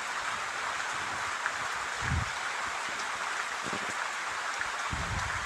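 Papads frying in hot oil: a steady sizzle with small crackles, and a couple of soft knocks.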